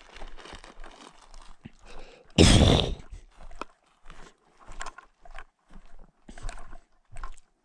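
Crunching footsteps and rustling in dry alpine grass, short irregular steps about two a second, with one loud scraping rustle about two and a half seconds in.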